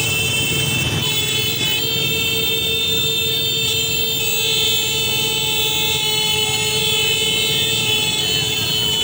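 Many motorcycle horns held down at once in a steady, continuous blare, over the running engines of a motorcycle convoy.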